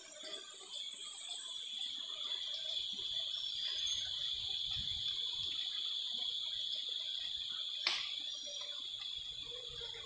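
Forest insect chorus: a steady, shrill drone at several high pitches that swells a couple of seconds in. A single sharp click sounds about eight seconds in.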